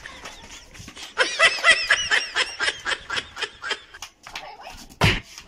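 Children laughing: a long run of quick, high-pitched giggles. Near the end there are a couple of loud thumps.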